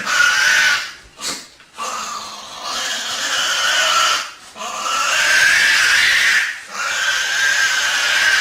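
Tasmanian devil screeching in a series of loud, harsh calls, with short breaks about one second, four seconds and six and a half seconds in.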